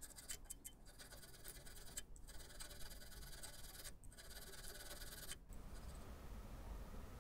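Hand file filing a small metal part held in a vise, in repeated scraping strokes; the filing stops about five and a half seconds in.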